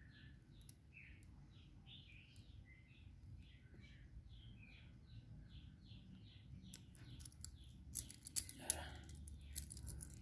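Faint bird chirping, a quick series of short high notes repeated about three to four times a second. From about seven seconds in, light clicks and clinks of small metal wrenches being handled take over and are the loudest part.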